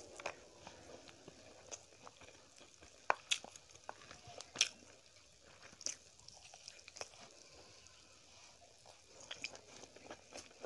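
Close-miked chewing and biting of rice and fried chicken eaten by hand, with sharp crisp bites and mouth clicks scattered through, the loudest a few seconds in.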